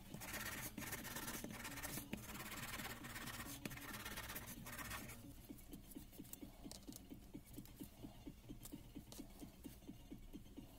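Nitrile-gloved hands handling small metal breaker parts. A scratchy rubbing fills the first half, then soft quick taps follow at about three a second as a ring is worked onto the piston.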